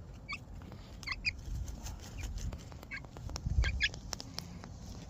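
Chickens giving short, high chirping calls, often in quick pairs, several times over a low rumble.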